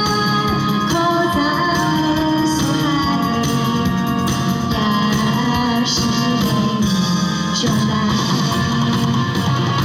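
Music of a Taiwanese-language pop song, with guitar and a singing voice over a band accompaniment.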